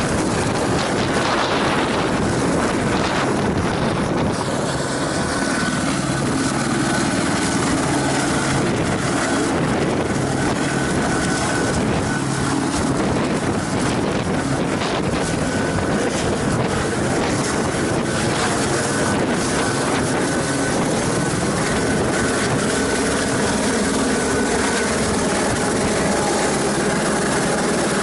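Helicopter running steadily, its engine and rotor chop filling the air.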